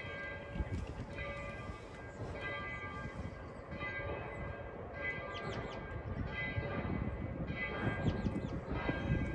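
Steam locomotive bell ringing in a slow, steady rhythm, about one strike every second and a quarter, over a low rumble.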